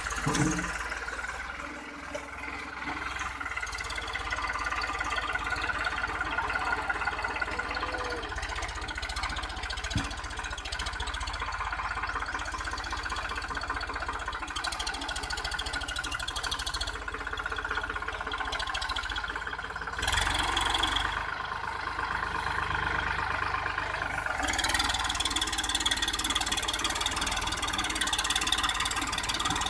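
New Holland 3630 tractor's three-cylinder diesel engine running steadily under load as the tractor climbs and crawls through loose sand. It gets louder about twenty seconds in.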